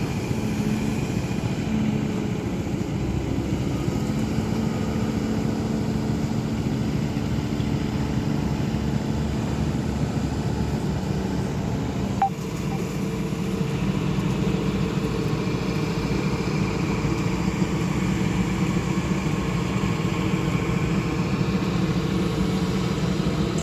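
Diesel engine of a pontoon-mounted excavator running steadily, with a short click and a brief dip in level about halfway through.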